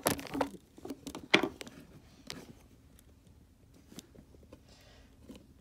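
Scattered light knocks and clicks of handling: a camera being moved and a plastic action figure set on a wooden surface, the loudest knock about a second in. A faint steady hum lies underneath in the second half.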